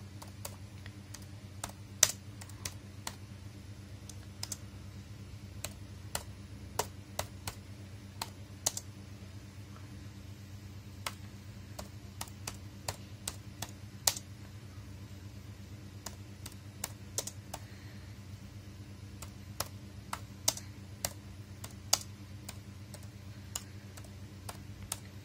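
Laptop keyboard being typed on slowly, one key at a time: irregular single key clicks with short pauses between them, over a steady low hum.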